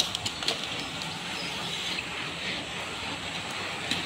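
A bunch of road bicycles passing close on a concrete road, a steady hiss of tyres and rushing air, with a few sharp clicks in the first half-second and another near the end.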